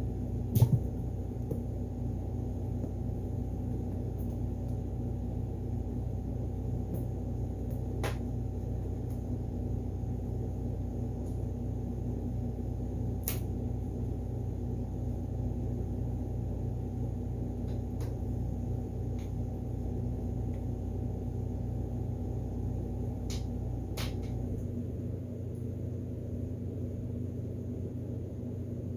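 Steady low hum with a faint higher steady tone that cuts off about four-fifths of the way through. A single thump comes about half a second in, and a few faint clicks are scattered through.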